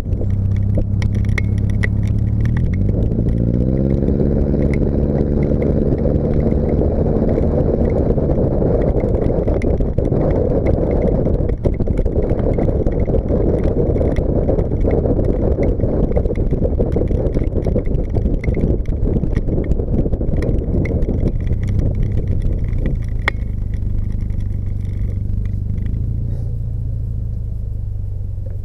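Subaru Baja's flat-four engine through a single-stack exhaust, under way on a drive. The revs climb steadily over a few seconds early on, the engine then runs hard under load for a long stretch, and it eases back to a lower, steady note near the end.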